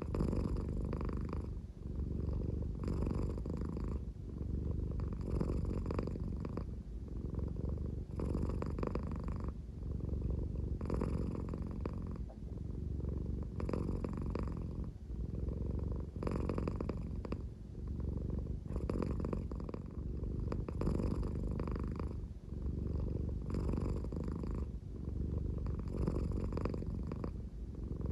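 American Shorthair cat purring slowly and steadily, with a snore-like sound that swells and fades with each breath, about every two and a half seconds.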